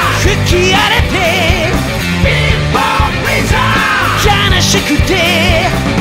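Rock music from a full band: drums and bass under a lead melody that bends and wavers in pitch, in a passage between sung verses.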